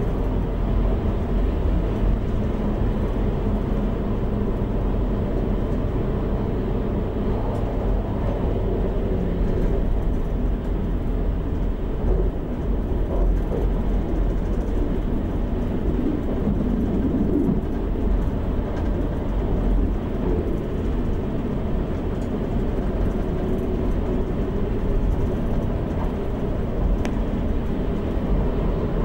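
Siemens Desiro class 642 diesel multiple unit running along the line, heard from the driver's cab: a steady low rumble of the diesel engines and the wheels on the rails.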